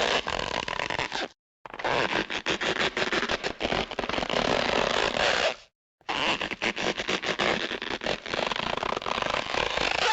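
A run of three cartoon sound effects, each a dense scratchy, crackling noise full of rapid clicks, cut apart by brief silences about a second and a half in and just before six seconds.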